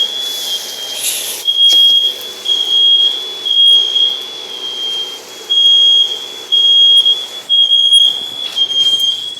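Smoke alarm sounding in the kitchen, set off by cooking: a loud, high-pitched beep repeating about once a second.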